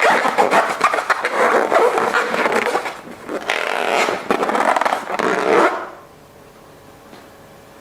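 Slime being worked and squished by hand: a dense crackling, scraping squish that cuts off abruptly a little under six seconds in.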